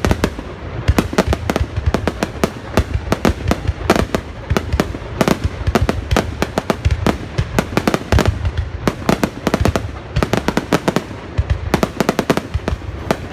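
Fireworks going off in rapid, irregular succession: many sharp bangs and pops each second over a low rumble, with no pause.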